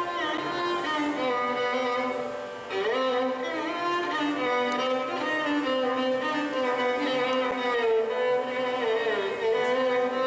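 Background music: a slow melody with sliding notes.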